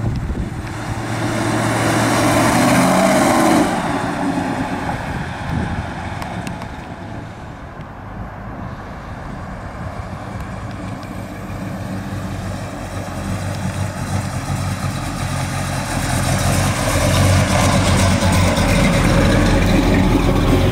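Built Boss 351 Cleveland V8 of a 1979 Ford Ranchero GT driving past. The engine grows louder and its note drops in pitch as it passes about three seconds in, fades back, then builds again near the end.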